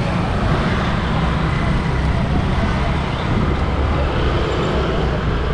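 Steady road traffic noise with a heavy low rumble.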